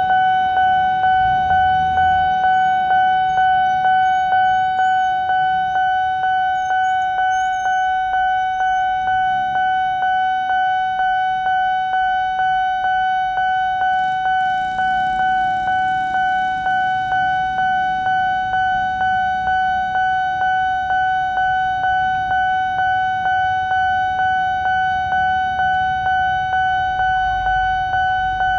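Railway level-crossing warning alarm sounding continuously: a steady high electronic tone that pulses regularly a little over once a second, signalling that a train is approaching and the barriers are down.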